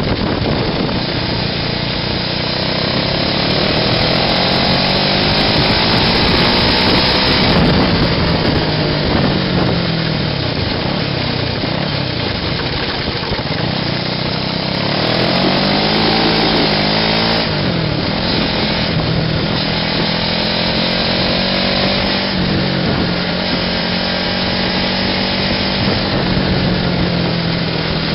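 Small air-cooled engine of a homemade buggy running loud and buzzy while driving, its pitch climbing as it speeds up and dropping back several times as it eases off.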